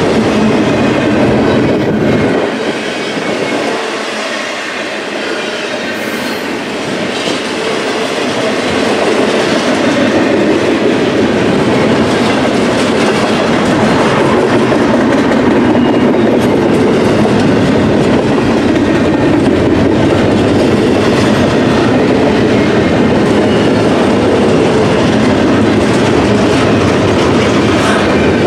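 Intermodal freight train rolling past at speed, its steel wheels running over the rail joints with a steady clickety-clack. The low rumble drops away for a few seconds near the start, then builds back.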